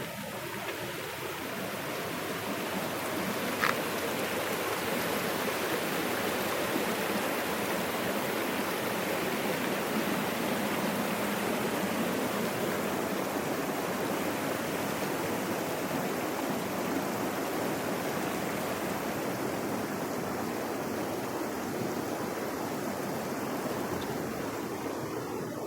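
Creek water rushing in a steady wash that grows louder over the first few seconds and eases slightly near the end, with one sharp click about three and a half seconds in.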